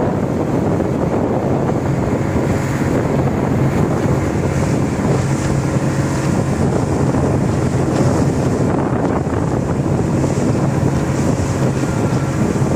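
A small passenger boat's engine running steadily at speed, a constant hum under water rushing past the hull and wind buffeting the microphone.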